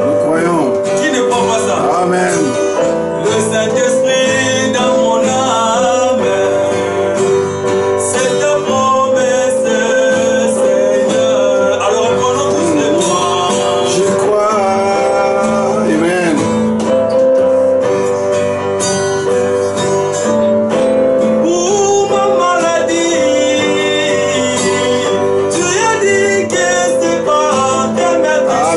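A man singing while he plays an acoustic guitar.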